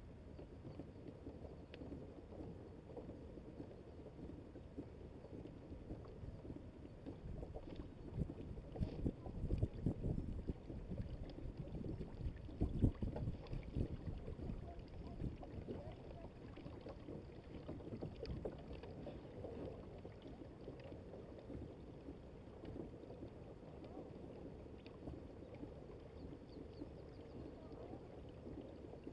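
Water rushing and splashing along the hull of a Hobie Adventure Island sailing kayak under sail, a rough, uneven rush that grows louder about eight seconds in and eases off again a few seconds later.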